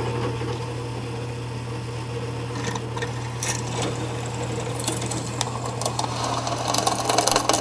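Small drill press running with a steady motor hum. From about three seconds in, a brand-new twist bit bores into the end of a 1/2-inch square steel keyway bar held in a vise, adding scraping cutting noise and clicks. The bit is cutting pretty easily as it deepens a shallow hole.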